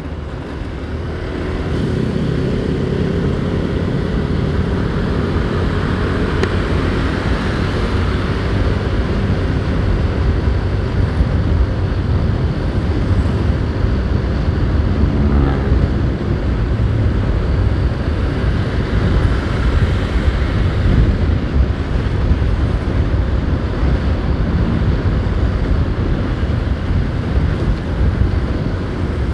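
Motorcycle riding along steadily: engine and road noise under a steady wind rush on the rider's microphone.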